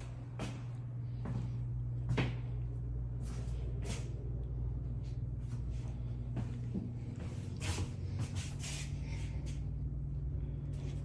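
A door being handled and footsteps on a tile floor: a scatter of short knocks and clicks, the most prominent about two seconds in and again near eight seconds in, over a steady low hum.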